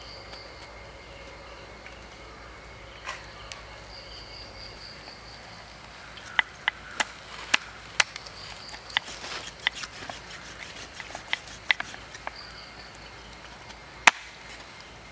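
Chopping with a blade on a wooden surface: irregular sharp strikes begin about six seconds in and come a few per second, with one louder strike near the end. A faint, high, pulsing insect- or bird-like tone sounds underneath.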